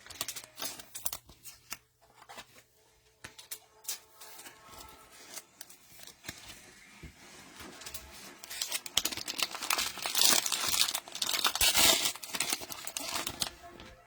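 Plastic cellophane wrapping of a trading-card pack being handled, torn open and crinkled: scattered rustles and clicks at first, then a louder, continuous stretch of tearing and crinkling in the last third.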